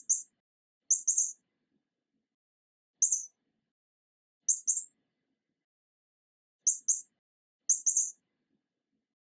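Short high-pitched bird-like chirps, each group two or three quick notes, six groups spaced irregularly a second or two apart with silence between.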